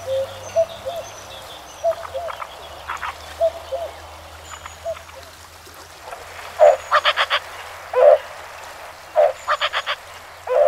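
Animal calls: short croaking calls repeating every second or so, with two quick runs of four or five sharp clicking notes about seven and nine and a half seconds in, over a faint rush of river water.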